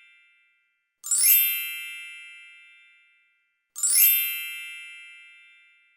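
A bright chime sound effect, the same one repeated: a sparkling shimmer over a ringing tone that fades over about two seconds. It sounds twice, about a second in and near four seconds, after the tail of one just before.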